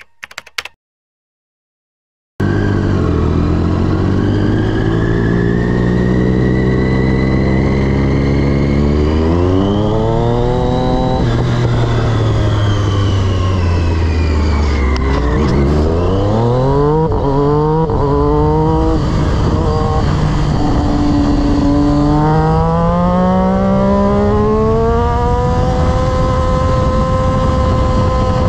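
Sport motorcycle engine at racetrack pace, heard from on board: the revs climb and fall repeatedly through gear changes, with a run of quick rev climbs in the middle, over steady wind rush. A brief intro sound opens, then about two seconds of silence before the engine comes in.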